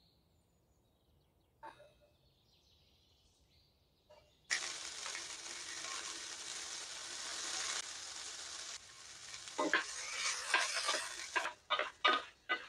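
Diced vegetables begin sizzling in oil in a frying pan about four seconds in, a steady hiss. Near the end a spatula stirs them, making a run of short scraping strokes.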